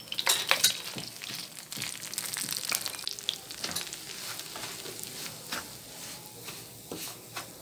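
Semolina sizzling as it is poured into hot desi ghee in a frying pan and stirred, with the wooden spatula scraping and clicking against the pan. The sizzle is loudest in the first second and dies down as the stirring goes on.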